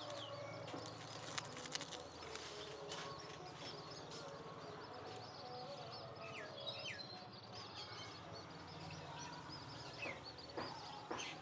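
Outdoor ambience of many short, high chirps over a low steady hum, with a few sharp clicks.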